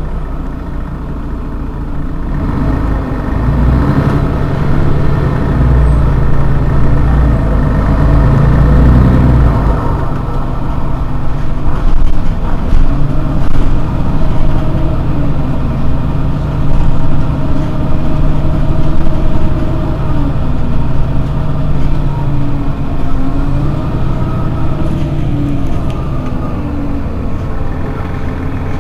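Engine of a Mercedes-Benz Citaro G C2 articulated city bus running while the bus stands at a stop. It is a low, steady rumble that grows louder a couple of seconds in, and its pitch wavers slightly.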